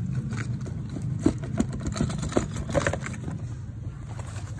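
An engine idling steadily in the background while plastic wrapping, paper and a cardboard box are handled, giving short crinkles, rustles and clicks.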